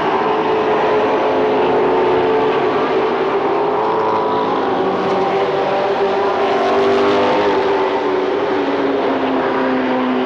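A pack of late model stock cars racing, their V8 engines running together. Several engine notes overlap, with pitches rising and falling as the cars go by.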